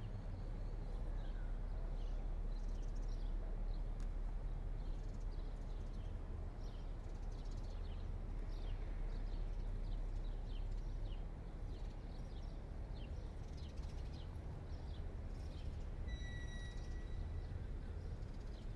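Footsteps on hard stone paving, a regular tread about two steps a second, over a steady low hum of city traffic. Near the end a high steady tone sounds for about a second and a half.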